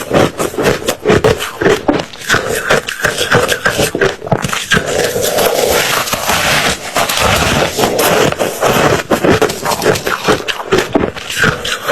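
Ice being bitten and chewed close to the microphone: a dense, unbroken run of sharp cracks and crunches.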